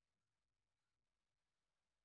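Near silence: an essentially empty sound track with no audible events.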